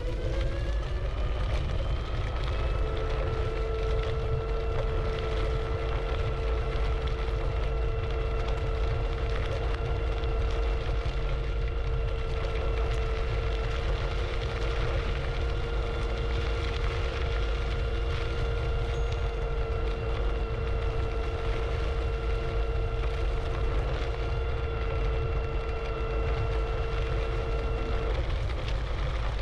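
IO Hawk Legend e-scooter's 500-watt geared motor whining. Its pitch rises as it speeds up at the start, then holds steady, dies away shortly before the end and rises again. This whine is typical of the geared motor, which is louder by design than usual e-scooter motors. A steady low rumble runs underneath.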